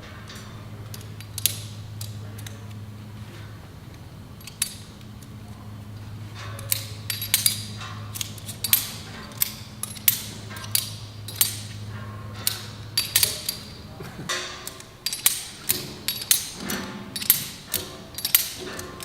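Screw-gate and triple-action locking carabiners being worked fast, their gates opening and snapping shut in a run of sharp metallic clicks and clinks that come sparsely at first and then thick and quick. A steady low hum lies underneath and stops about two-thirds of the way through.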